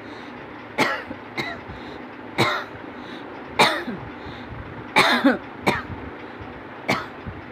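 A person coughing on purpose, a string of about seven sharp, forced coughs roughly a second apart, two of them coming close together about five seconds in.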